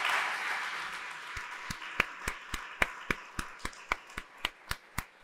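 Audience applause dying away, then one person clapping steadily close to the microphone, about three sharp claps a second.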